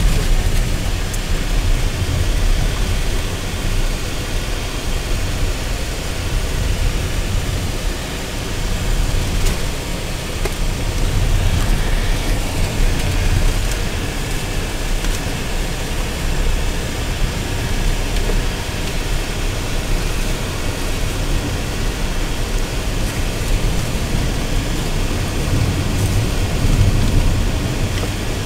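Steady road and engine noise from inside the cabin of a moving 2015 Renault Duster: a low rumble with an even hiss of tyres and wind.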